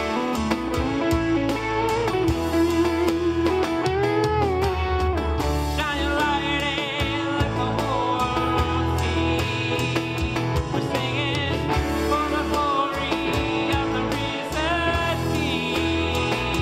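Worship music led by guitars, over a steady bass. A melody line with vibrato carries the first few seconds, and fast trilling figures enter higher up about six seconds in.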